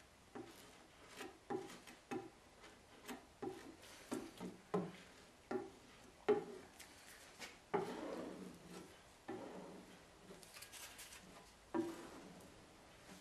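Metal putty knife dabbing and scraping over resin-wetted fiberglass cloth, working the resin into the glass cloth patch on a boat hull: a string of soft taps about two a second, then a longer scrape, and one more tap near the end.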